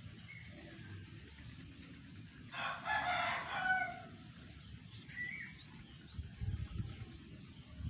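A rooster crowing once, a single call of about a second and a half beginning about two and a half seconds in, heard faintly over low background rumble. A short bird chirp follows about two seconds later.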